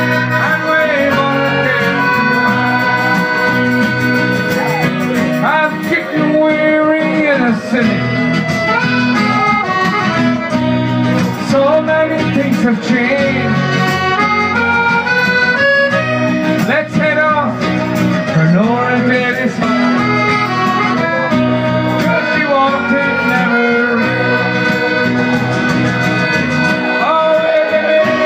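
Live band music led by a piano accordion, with strummed acoustic guitar and singing.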